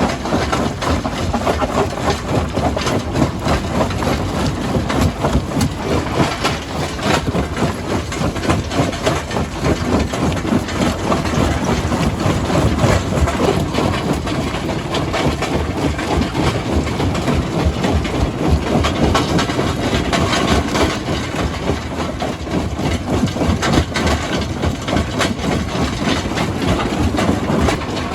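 Heavy stone-crushing machinery running steadily, with frequent irregular knocks and clatter of rock.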